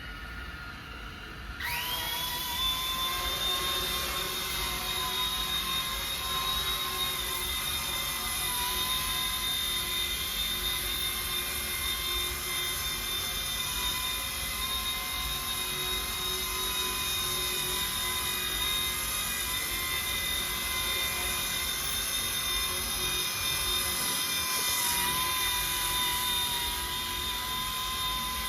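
Small RC helicopter running on RC ERA C-186 mechanics: the motor and rotor spool up suddenly just under two seconds in, then hold a steady high whine, its pitch wobbling briefly near the end.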